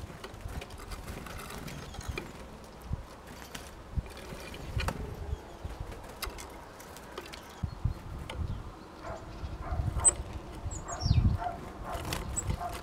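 Scattered light clicks and knocks, with a few thin, high calls from tits about ten seconds in and several low thumps shortly after.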